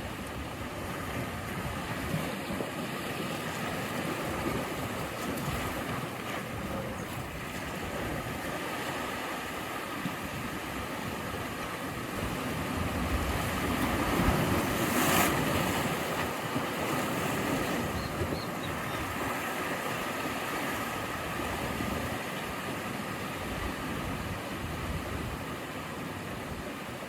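Ocean waves washing on the shore, a steady surf with one larger wave swelling and breaking about halfway through.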